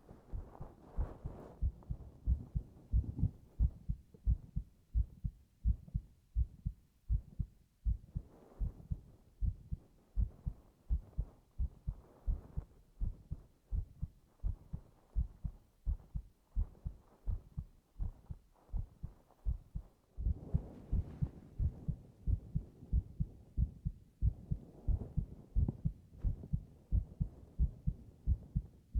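Human heartbeat heard close up, as with an ear pressed to a man's chest, recorded binaurally: a steady, even rhythm of soft low thumps.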